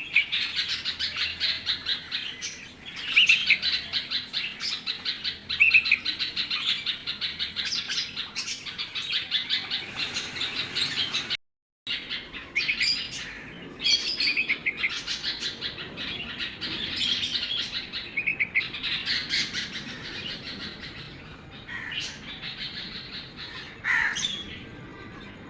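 Baby bulbuls chirping rapidly and continuously, many high chirps a second with louder calls mixed in. The sound cuts out briefly about halfway through.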